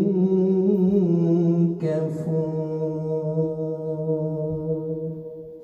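A man chanting Qur'an recitation in melodic tajwid style, drawing out the closing vowels of a verse in long held notes. There is a short consonant break about two seconds in, and the last note fades away near the end.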